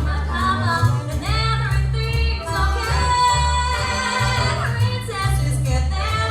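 Music with singing over a heavy bass line.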